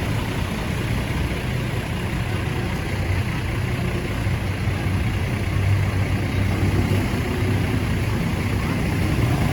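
A heavy bus's diesel engine running steadily with a deep, low hum, a little louder in the second half.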